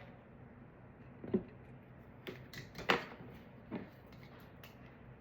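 A handful of short, sharp clicks from hand tools snipping and snapping support material off a 3D-printed plastic figure, the loudest about three seconds in.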